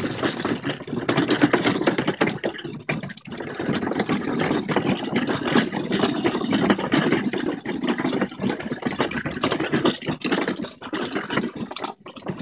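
Hard plastic wheels of a toddler's ride-on push car rolling over concrete paving slabs, a continuous clattering rumble with a brief break about three seconds in and another near the end.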